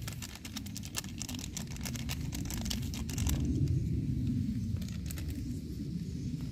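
A wok of pork broth boiling hard over an open wood fire, with dense crackling and popping for the first three seconds or so, then sparser, over a steady low rumble.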